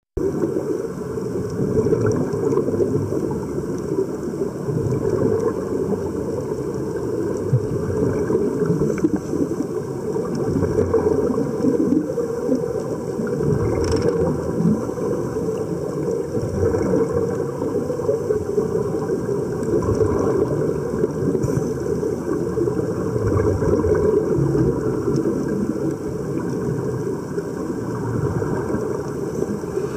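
Muffled underwater bubbling and low churning rumble, heard through a submerged camera, as air streams out of sea-walker diving helmets fed by hoses; one faint click about halfway through.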